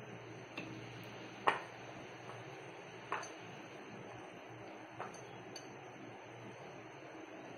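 A hand mixing wheat flour and water into dough in a bowl, with about five short sharp clicks against the bowl. The loudest click comes about one and a half seconds in.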